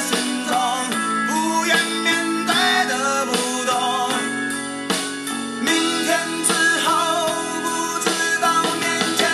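A song playing: a singer over guitar accompaniment, with the music continuing steadily throughout.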